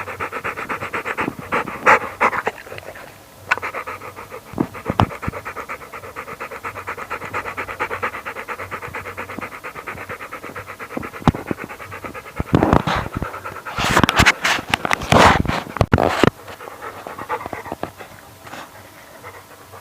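A dog panting fast and steadily. A burst of loud knocks and rustling comes about two thirds of the way in, after which the panting goes on more faintly.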